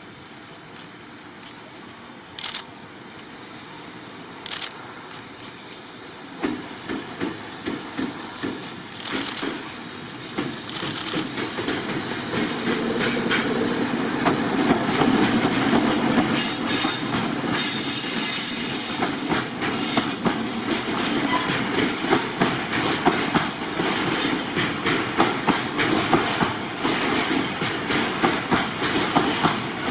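Departing freight train hauled by an electric locomotive, drawing nearer and growing louder over the first dozen seconds. Its wheels clatter in a quick, irregular rhythm of clicks over the rail joints above a steady rumble.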